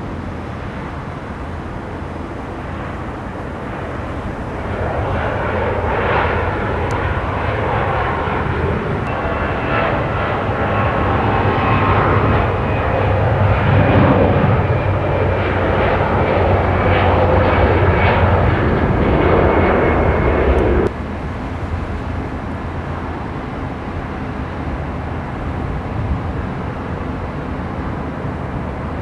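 Jet airliner engines, an Airbus A320's, growing louder and running loud as the plane moves along the runway. The sound cuts off abruptly about two-thirds of the way through. After that a quieter, steady jet engine noise continues.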